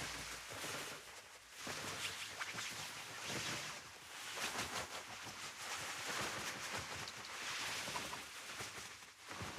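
Nylon windbreaker jacket fabric rustling and swishing as it is handled and put on, in repeated swells roughly once a second.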